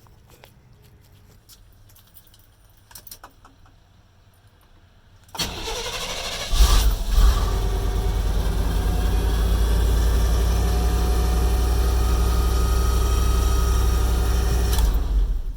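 1990 Chevrolet C1500 pickup's engine cranked over and starting after a fuel filter replacement, catching after about a second and then idling steadily before cutting off suddenly near the end.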